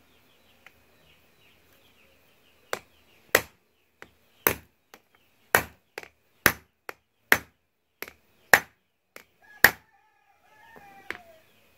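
A steel claw hammer strikes a motorcycle drive chain resting on a wooden block, knocking out a link pin to shorten the stretched chain. The sharp blows start about three seconds in and come about once a second, with lighter taps between, until about ten seconds in.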